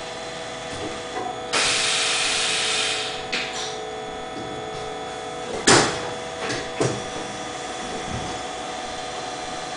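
Steady machine hum from a commutator roundness-test setup. A hiss lasting about a second comes near the start, and a sharp knock, the loudest sound, comes a little past halfway, followed by a couple of lighter knocks.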